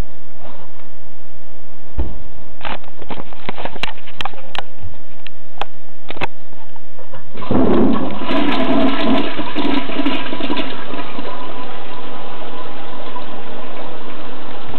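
A few scattered clicks and knocks, then a toilet flushes: a sudden rush of water starts about halfway through, strongest for the first few seconds, then settles into steady running water as the bowl drains and refills.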